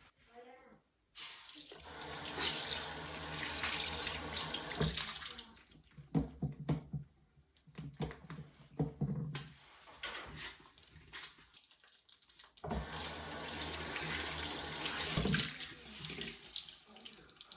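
Tap water running into a sink in two stretches, with splashing and handling noises between them.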